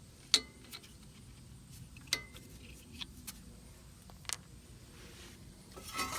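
Scattered sharp metal clicks, a few ringing briefly, as the brake caliper's slide pins are pulled out and handled. The clicks come one at a time, then bunch into a busier clatter near the end.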